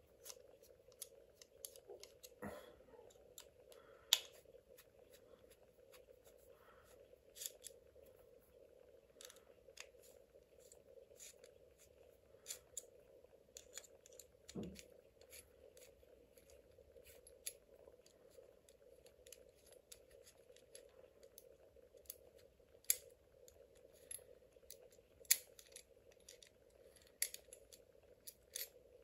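Sparse light clicks and handling noises as small parts are taken off by hand, over a faint steady hum.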